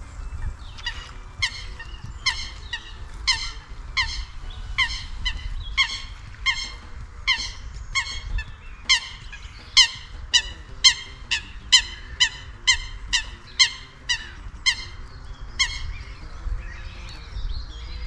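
A goose honking over and over: a run of about twenty loud, sharp honks that quicken to about two a second in the middle and stop a couple of seconds before the end, over a low steady rumble.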